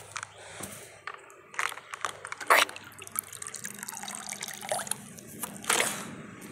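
Water splashing in a plastic tub and spilling over its rim onto grass, with several sharp splashes, the loudest about two and a half seconds in.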